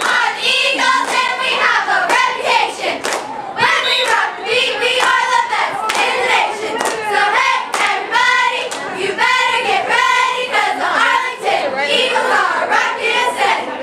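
A group of high young voices chanting or singing together in rhythmic phrases, with hand claps mixed in, as in a sideline cheer.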